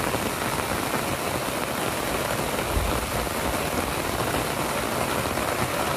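Heavy summer thunderstorm rain coming down hard and falling steadily on a tarp shelter overhead.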